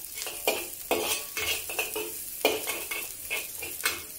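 A metal wok spatula scraping and knocking against a wok in repeated strokes while sliced garlic and spring onions sizzle in hot oil.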